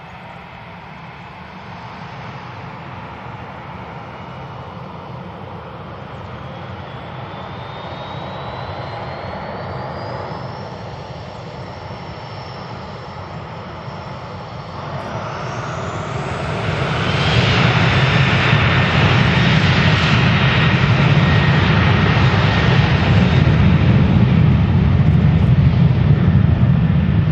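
Boeing 737-800's twin CFM56-7B turbofans spooling up for takeoff. A whine rises in pitch in two steps, and about two-thirds of the way through the engines jump to a much louder, steady takeoff-thrust rush as the takeoff roll begins.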